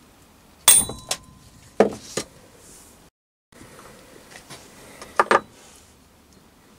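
One sharp knock of a copper mallet on a thick brass plate laid on the back of a 4-jaw lathe chuck, with a brief metallic ring. The knock drives the transfer screws' points into the backplate beneath to mark the bolt-hole positions. A few lighter knocks and clinks follow as the mallet is set down, the brass plate lifted off and the chuck handled.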